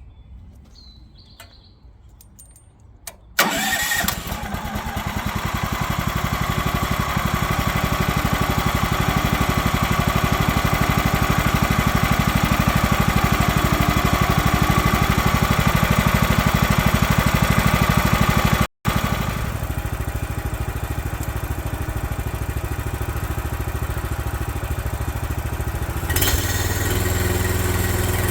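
Sawmill's small gasoline engine starting about three seconds in and then running steadily, getting louder over the next several seconds. About two seconds before the end the sound shifts to a deeper steady hum.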